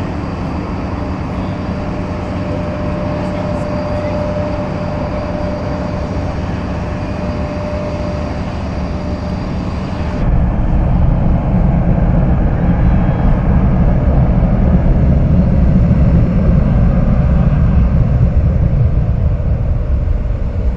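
Jet engines of a Boeing 787 with Rolls-Royce Trent 1000 engines taxiing past, a steady rush with a thin whine. About halfway through it cuts to a louder, deeper rumble from the IAE V2500 engines of an Airbus A321-231 rolling on the runway.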